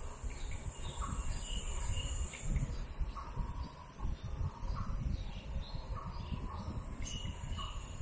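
A bird calling several times, short calls every second or two, over a steady high hiss and an uneven low rumble.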